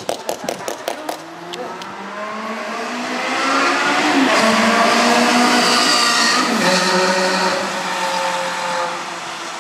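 A Ferrari 360's V8 and a second car going past at speed on a wet track: the engine notes rise as they approach and drop in pitch as each goes by, about four and seven seconds in, over the hiss of tyres on the wet surface, then fade away.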